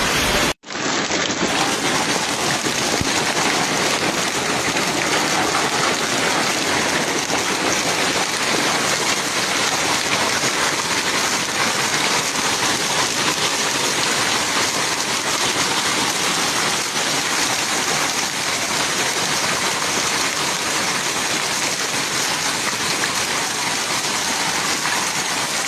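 Heavy rain pouring steadily: a dense, even hiss, cut off briefly about half a second in.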